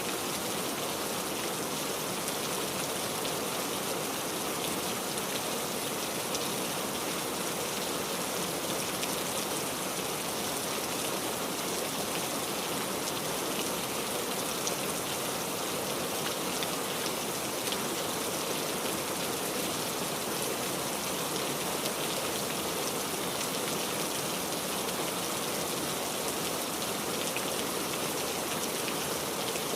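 Steady rain falling, an even hiss of many fine raindrop patters with no let-up.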